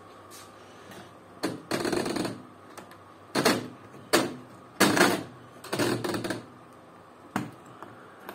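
Rotary selector knobs of a front-loading washing machine being turned, their detents clicking and ratcheting in about seven short bursts.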